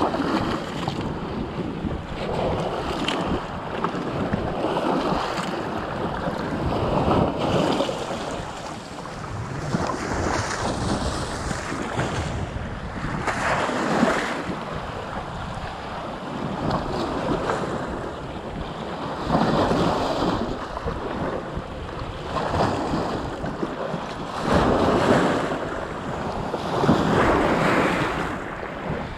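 Small sea waves washing in and splashing over shore rocks close to the microphone, swelling every few seconds, with wind buffeting the microphone.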